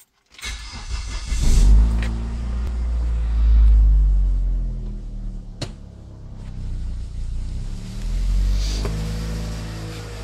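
Chevrolet Vectra engine cranked on the starter, catching after about a second, then running with its speed rising and falling twice. There is one sharp click partway through. This is the start-up that carries a strange noise the owner cannot locate.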